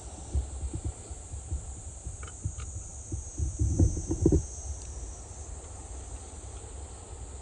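Insects chirring steadily in a high band, with scattered low thumps and knocks, the loudest cluster of them about halfway through.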